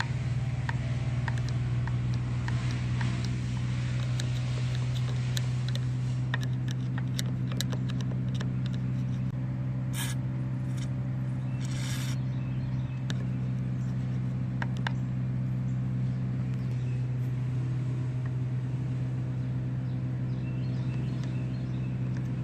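Aerosol carb cleaner sprayed in two short hissing bursts onto the pivot of a varnish-stuck choke flap on a Briggs & Stratton carburetor, with repeated light clicks of a screwdriver working the flap. A steady low drone runs underneath.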